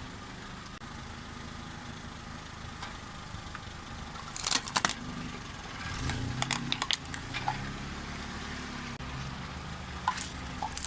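Car engine running at low speed, with sharp crunching and cracking as something brittle is crushed under a tyre: a loud cluster about four and a half seconds in, more cracks between six and seven seconds, and a last crack near the end.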